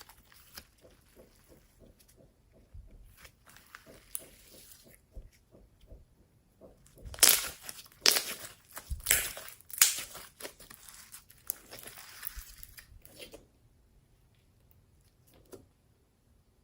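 Slime being squeezed and stretched by hand, giving a run of sharp clicks and pops, loudest in a cluster about halfway through, then stopping a few seconds before the end.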